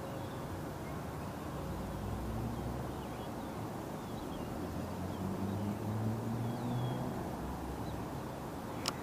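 Steady outdoor background of river water and wind, with a low drone that swells in the middle and fades, a few faint bird chirps, and one sharp click near the end.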